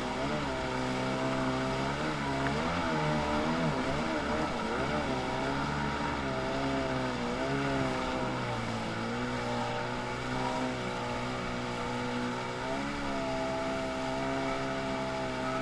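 Stand-up jet ski engine running at speed, its revs rising and falling with the throttle for most of the time and holding steadier near the end, over the rush of water and spray.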